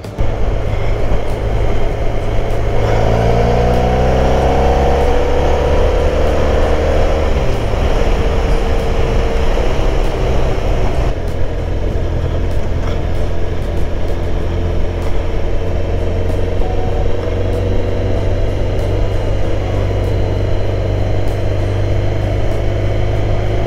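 Motorcycle engine running at road speed under heavy wind and road noise. The engine note rises for a few seconds near the start as the bike accelerates, then settles to a steady run.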